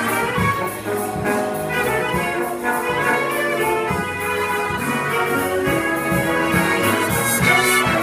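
Jazz big band playing live, saxophone, trumpet and trombone sections together over piano, guitar and bass, with the drums keeping a steady beat.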